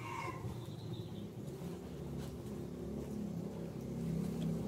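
A motor vehicle's engine running in the distance, a low hum that grows louder toward the end as it comes closer.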